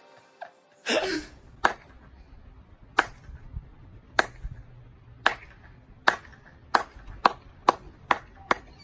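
A short noisy burst about a second in, then about ten single sharp claps that start slow and speed up steadily, like a sarcastic slow clap.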